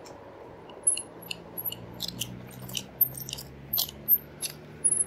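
Irregular light clicks and crunches, two or three a second, from an electric fat-tire bike rolling slowly along a sidewalk, with a low steady hum underneath.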